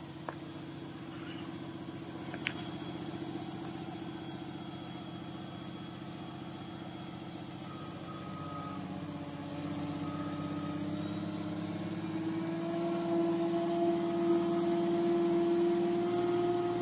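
Heavy-equipment engine running steadily, then climbing in pitch and getting louder from about twelve seconds in as it is revved up. A few light clicks near the start.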